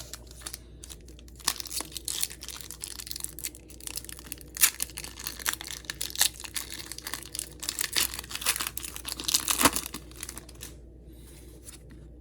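Foil wrapper of a Pokémon booster pack being torn open and crinkled in the hands: a run of crackling rustles with a few sharper tears, stopping about ten seconds in.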